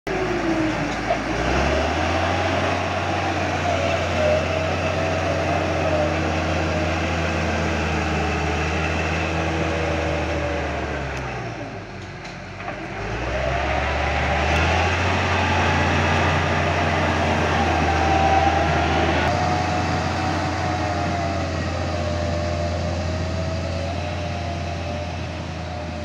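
Caterpillar D6G crawler bulldozer's diesel engine running under load as it pushes dirt: a deep, steady drone with a wavering higher whine over it. About halfway through the engine drops off briefly, then builds back up.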